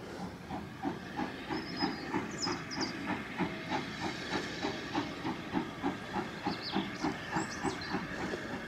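Steam locomotive coming in with its train, chuffing steadily about three times a second over a hiss of steam.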